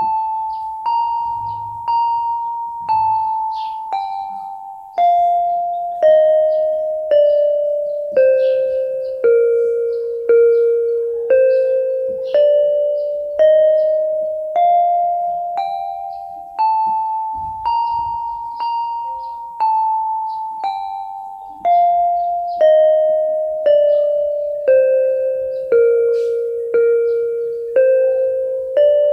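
Yamaha PSR-32 electronic keyboard playing a one-octave scale slowly with one hand, a single note about every second, each struck sharply and fading. The scale runs down, back up, and down again.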